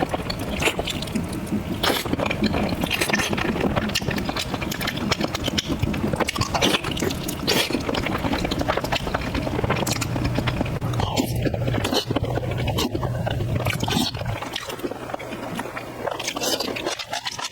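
Close-miked chewing of beef tendon: wet smacking and clicking mouth sounds, dense and continuous, with a low hum from about ten to fourteen seconds in.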